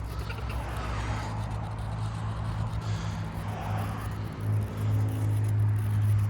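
Steady low rumble of wind on the microphone, growing stronger about four and a half seconds in.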